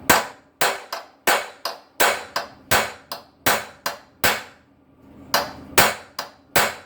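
Hammer striking a punch held on the seized cylinder head bolts of a Wisconsin TFD engine: a steady run of sharp metallic taps, about three a second, with a brief pause about four and a half seconds in before the taps resume. The shock is to break the heated bolts loose while a socket wrench holds torque on them.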